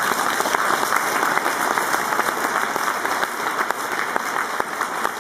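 A large audience applauding, many hands clapping at once in a dense, even patter.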